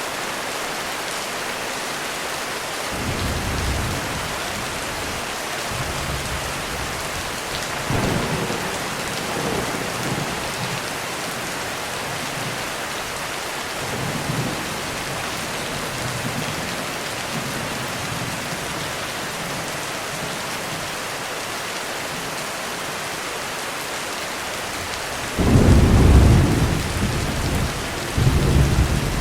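Heavy rain falling steadily, with thunder rumbling low several times. The thunder is loudest in a sudden clap about three-quarters of the way through, followed by a second peal just before the end.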